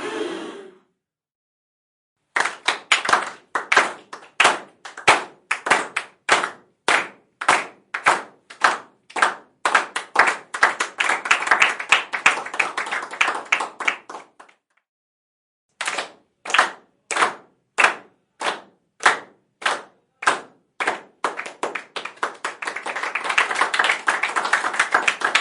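Crowd clapping in unison, about two to three claps a second, with scattered applause swelling underneath. It stops briefly about halfway through, starts again, and turns into full applause near the end.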